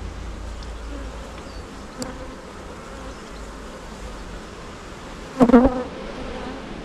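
Honey bees from an open hive buzzing steadily. About five and a half seconds in, one bee buzzes loudly for half a second.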